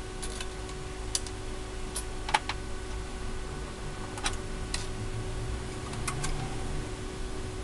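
Light, irregular clicks and ticks as hands work parts at the edge of an opened PlayStation 4's metal shield, the sharpest about two and a half seconds in, over a steady low hum.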